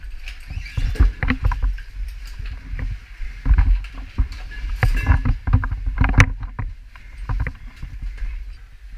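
A caver clambering through a tight, wet rock passage: irregular knocks and scrapes of boots, helmet and gear against the rock, with a tackle bag rubbing and bumping, over a low handling rumble.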